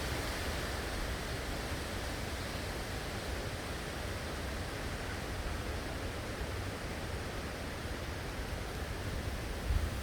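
Steady, even hiss of heavy typhoon rain and wind, with a low rumble of wind buffeting the microphone near the end.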